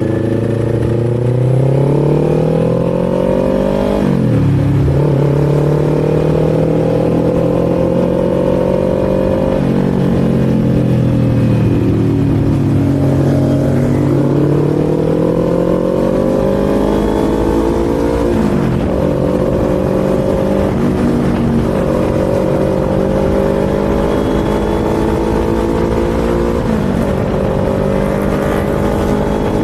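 Kawasaki Z400's parallel-twin engine pulling through the gears: its pitch climbs steadily, then drops sharply at each upshift, about five times, with wind rumble underneath.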